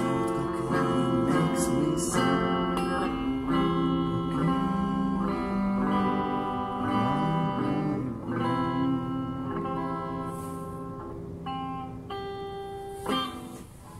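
Guitar playing a blues riff of picked notes and chords. It gets quieter toward the end, with a final chord struck near the close.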